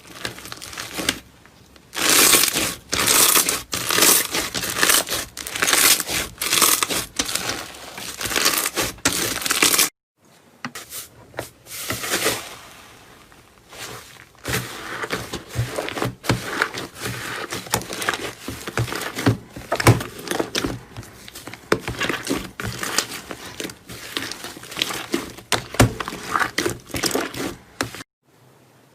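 Slime being squeezed, pressed and stretched by hand, giving a dense run of crackles, clicks and small pops. The sound cuts off abruptly about ten seconds in, and then a second, softer stretch of crackling and popping follows.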